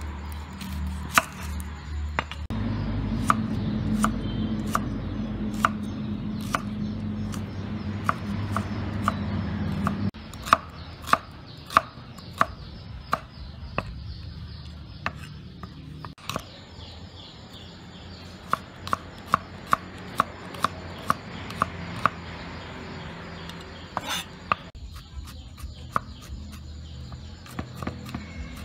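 Kitchen knife chopping shallots and ginger on a wooden chopping board: sharp knocks of the blade on the wood, one or two a second, coming faster in short runs. A low hum sits under the first third and stops suddenly.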